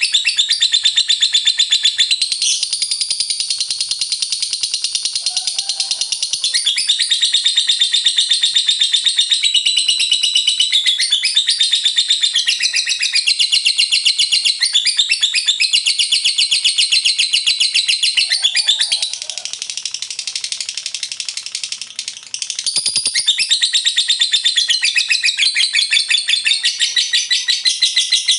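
Lovebird singing a long, continuous 'ngekek' chatter: a loud, unbroken stream of very fast, high-pitched repeated notes, dropping quieter for a few seconds about two-thirds of the way through before picking up again.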